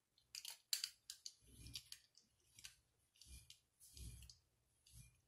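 Faint clicks and scrapes of a glass bottle being turned by hand on a hard tabletop, with a few soft thumps.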